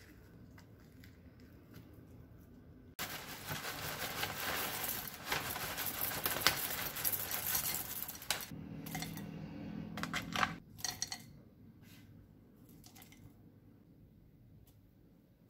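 Cornflake cereal poured into a glass mug of Greek yogurt: a dry crinkly rustle with many small crackles for about five seconds. It is followed by a short scraping and a few light clinks of a spoon against the glass.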